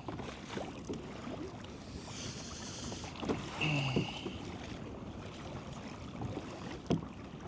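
Kayak paddle dipping and splashing in the water, small irregular splashes and drips over a steady wash of water.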